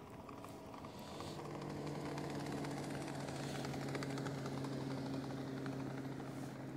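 A boat motor running with a steady hum that grows louder over the first few seconds and then holds.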